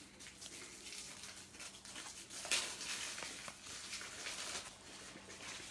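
Faint rustling and soft ticks of trading cards being slid and flipped through by hand, a little louder about two and a half seconds in.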